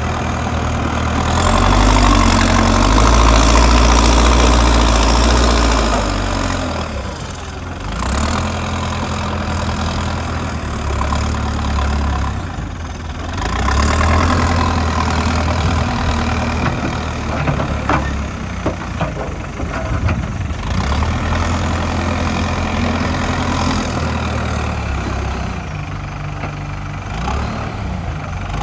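Diesel engine of a JCB machine running as it loads a tipper truck, its low rumble rising and falling as it comes under hydraulic load, with a few sharp knocks about two-thirds of the way through.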